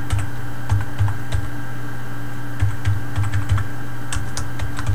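Typing on a computer keyboard: a run of uneven key clicks, with a pause of about a second in the middle, over a steady low electrical hum.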